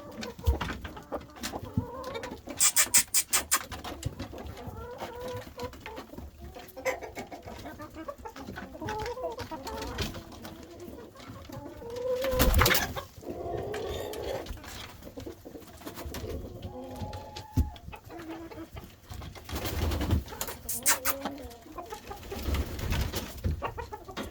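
Domestic hens clucking softly and intermittently, mixed with scattered sharp clicks and knocks, the loudest in clusters about two seconds in, near the middle and near the end.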